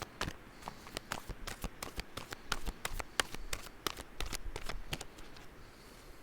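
Tarot cards being shuffled by hand: a run of crisp, irregular card clicks and slaps, several a second, that stops about five and a half seconds in.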